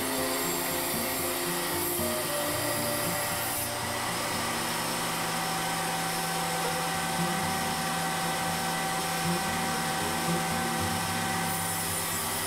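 Table saw running and ripping a thin strip of wood fed along the fence, a steady sawing noise, under background music.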